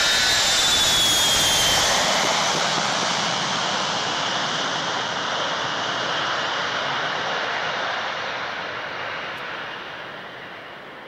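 Boeing 707 jet engines running loud as the airliner passes along the runway, a high whine sliding down in pitch as it goes by, then the engine noise fading steadily as it moves away.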